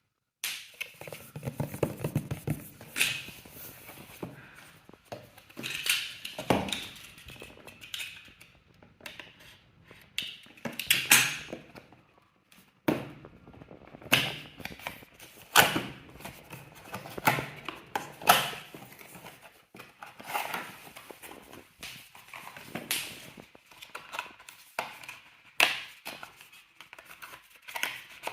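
Rustling, scraping and light knocks of an unboxing, a cardboard box and its contents being handled, in irregular bursts with short pauses.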